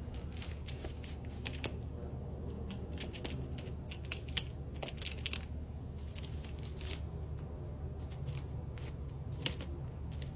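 African pied crow pecking and tearing at a green corn husk with its beak, making irregular crisp clicks and short rips, over a steady low hum.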